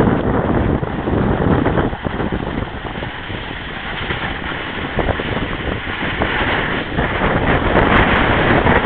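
Wind rushing and buffeting on the microphone of a camera moving fast down a ski slope, mixed with the scrape of snow under the rider. It is an unsteady roar that grows louder near the end.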